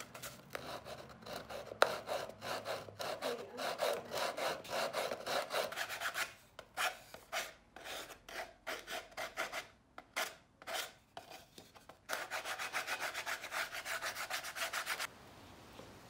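Sandpaper rubbed by hand back and forth along the cut edge of a plywood piece, smoothing it. The strokes come about four a second, thin out in the middle, then pick up into a faster run that stops abruptly near the end. One sharper knock comes about two seconds in.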